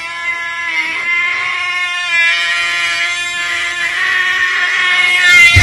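Domestic cat's long, drawn-out yowl (caterwaul), held for seconds and wavering slightly in pitch every second or so: a territorial threat toward another cat on the other side of a glass door.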